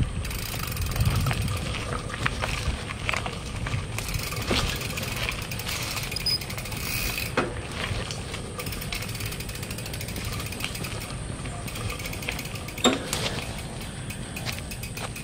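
Bicycle rolling along a dirt track, its rear freewheel ratcheting as it coasts over low tyre rumble, with scattered rattles and one sharper knock about two seconds before the end.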